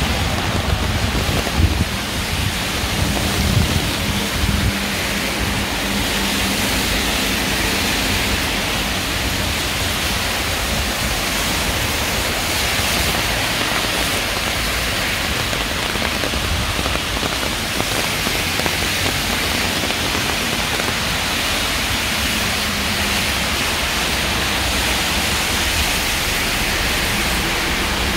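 Steady rain falling, an even hiss. A low rumble sits under it for the first five seconds or so.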